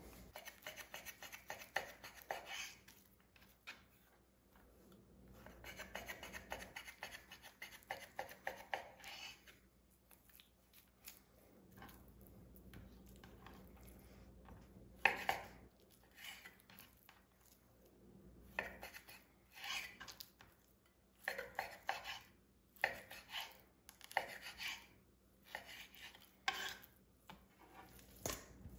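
Chef's knife slicing raw chicken breast on a bamboo cutting board: quick runs of light strokes at first, then separate, sharper cuts as the blade meets the board.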